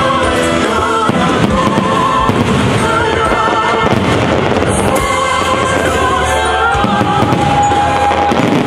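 Fireworks bursting in quick succession, a dense run of bangs and crackle, mixed with music that has a wavering singing voice.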